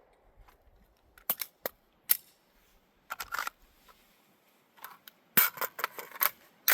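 Scattered clicks, clacks and light rattles from handling firearms and gear, with a quick cluster of them in the last second and a half.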